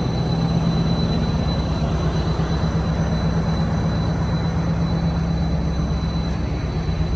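Fishing trawler's engine and machinery droning steadily, a low hum under a wash of noise, with a thin high whine that fades out near the end.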